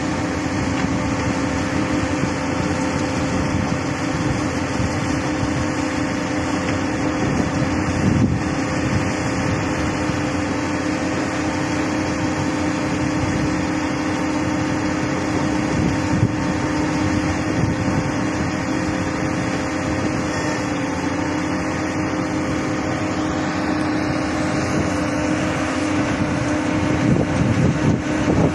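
Hyundai R215L SMART Plus excavator running steadily, its engine and hydraulics giving a constant drone with a steady hum.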